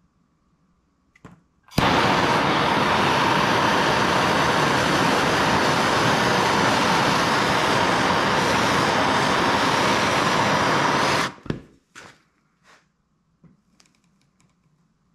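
A handheld gas torch: a click, then the blue flame's steady, loud hiss as it heats a metal branding iron, cutting off suddenly about eleven seconds in. A few faint knocks follow.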